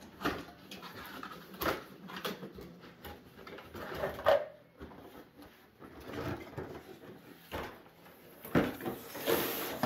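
Scattered knocks and clicks of a cardboard toy box and plastic toys being handled, the loudest about four seconds in, with rustling near the end.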